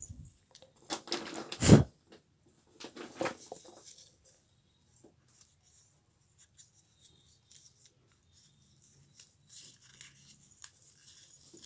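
Paper rustling and crinkling as a folded newspaper-and-notebook-paper wallet is handled, with a loud thump near the middle of the second second and softer crackling as its flap is lifted near the end.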